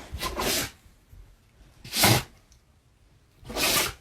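A dog sneezing three times, short sneezes about a second and a half apart.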